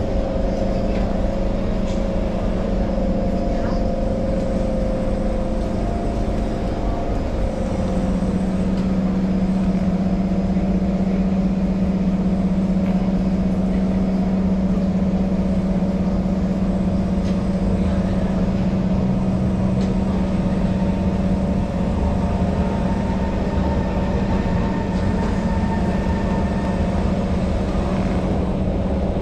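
Singapore MRT train heard from inside the carriage, running and slowing to a stop at a station. It then stands with its doors open, giving off a steady low hum that changes about seven seconds in.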